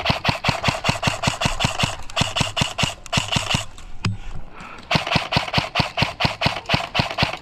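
Airsoft guns firing on full auto, a rapid even stream of shots at about ten a second. The firing stops about four seconds in with one sharp crack, then starts again a second later.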